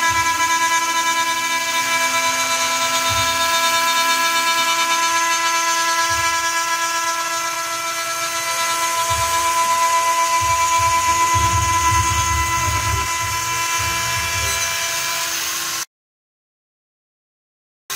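CNC milling spindle running at a steady high whine as the end mill cuts a metal plate, with a hiss of cutting and bursts of low rumble as the cut loads up. The sound cuts off abruptly about two seconds before the end.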